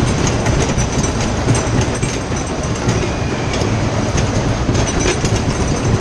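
Vintage fairground ride in motion, heard from on board: a steady, loud rolling rumble with scattered clattering clicks.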